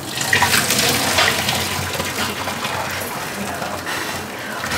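Hot starchy water and boiled rice poured from a steel pot into a wire-mesh strainer in a stainless-steel sink, the water gushing and splashing steadily as the rice is drained.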